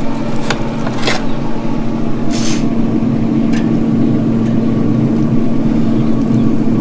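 Steady hum of a Traeger pellet grill's fan running, one low tone held throughout. A few light knocks and a short scrape in the first few seconds as the tri-tip is laid on the metal grate.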